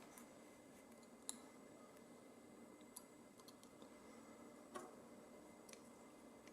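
Faint, sparse small clicks of metal lock parts being handled as a pin-tumbler euro cylinder is taken apart, a few separate ticks with quiet between them, the sharpest about a second in and just before five seconds.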